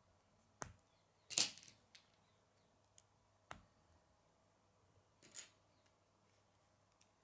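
Small K'nex plastic pieces clicking and snapping together as rods are pushed into a connector by hand: a handful of separate sharp clicks, with a louder plastic clatter about a second and a half in and another near the end.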